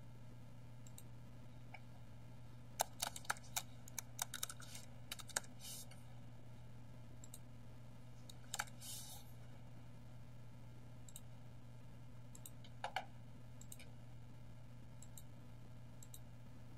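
Computer keyboard typing, a quick run of about a dozen faint keystrokes a few seconds in, then a few single clicks later, over a steady low hum.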